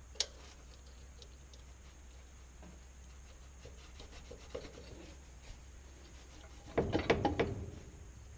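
Hand tools being handled: a sharp metal click, a few faint clicks, then near the end a brief rattling clatter of metal, as circlip pliers are set up and fitted.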